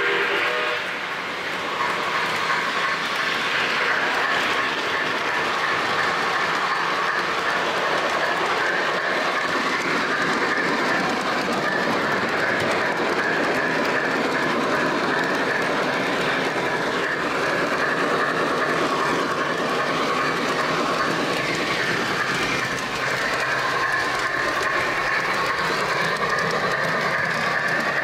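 O gauge three-rail model train running along the track, heard from on board: a steady rumble of wheels on rail with a faint steady whine.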